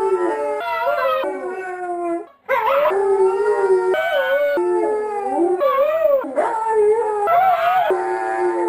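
Two huskies howling back and forth, their long wavering howls overlapping at two different pitches, with a short break a little over two seconds in.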